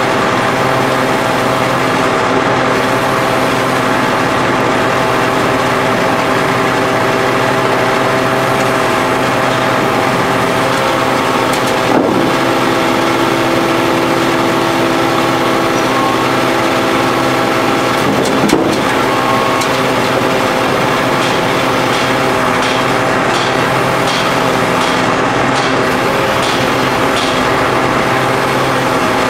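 Hydraulic power pack running steadily to drive an H-beam pile extractor as it pulls a steel pile, with a higher whine added for about six seconds in the middle. A sharp click about twelve seconds in, a knock a few seconds later, and a run of faint ticks about twice a second near the end.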